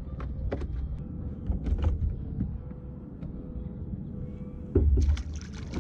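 Low rumble of wind on the microphone and water against a kayak, with scattered small clicks and knocks from fishing gear being handled; a louder rush of noise comes about five seconds in.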